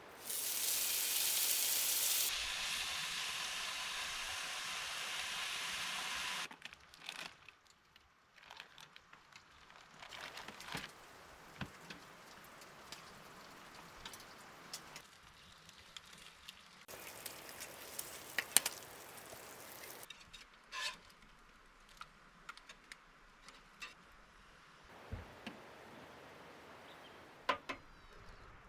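Food sizzling in a hot frying pan, a loud hiss for about six seconds, followed by quieter stretches with scattered crackles and clicks and a second, shorter sizzle later on.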